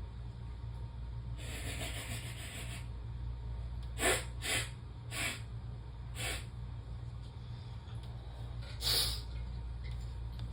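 A long hissing sniff of about a second and a half, snorting Chhinkni herbal sneezing powder up the nose through a straw, followed by several short, sharp nasal sniffs as the powder starts to burn.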